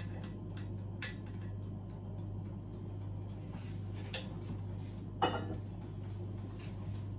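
A utensil clinking and scraping against mixing bowls as eggs are scraped out of a bowl into a stainless steel bowl: a scatter of small clicks, with a sharper knock about five seconds in. A steady low hum runs underneath.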